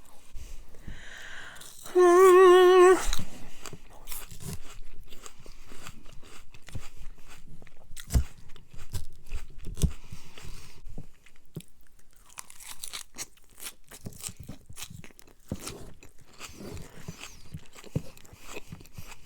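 Close-up eating sounds: chewing, biting and small mouth clicks of someone eating a casserole. About two seconds in comes a loud, wavering pitched voice-like sound lasting about a second.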